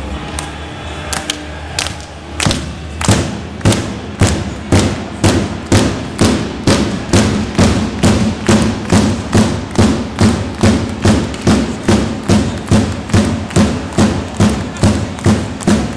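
Ice hockey fans' drum beaten in a steady rhythm, a little under two beats a second, starting about two and a half seconds in, over the noise of the crowd in the arena.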